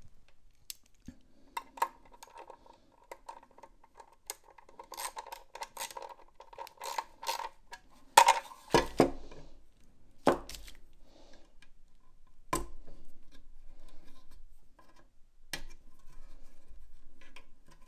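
Socket ratchet clicking in quick runs as a nut is run down onto the strut's mounting screw on a steel trunk-lid hinge. Several sharp metal knocks about eight to thirteen seconds in, as the tool and hinge parts clank together.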